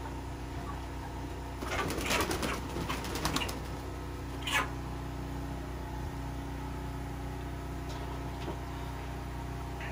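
A Cornish cross meat chicken flapping its wings in a flurry for a couple of seconds while held upside down by its legs, followed by one short sharp sound, over a steady low hum.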